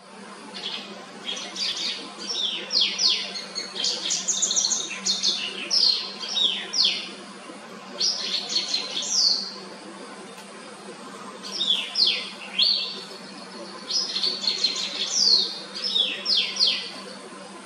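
White-browed wagtail singing: several phrases of quick, sharp downslurred whistles and fast trills, separated by short pauses. A faint steady low hum runs underneath.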